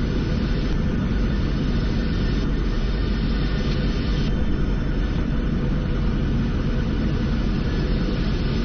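Steady flight-deck noise of a Boeing 747-400 descending on final approach: an even low rumble with hiss above it, from airflow and the engines.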